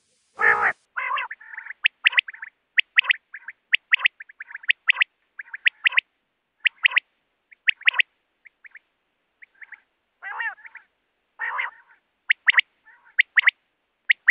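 Common quail's 'wet-my-lips' call, given over and over as quick groups of two or three sharp, high notes about once a second. A few harsher, lower calls are mixed in near the start and about ten seconds in.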